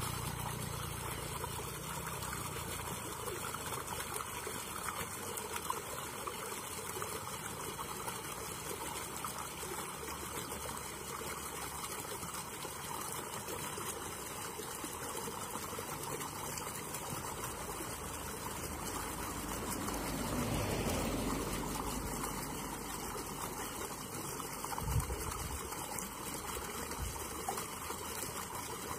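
Steady trickle of flowing river water, with a brief swell in level about two-thirds of the way through and a short low thump near the end.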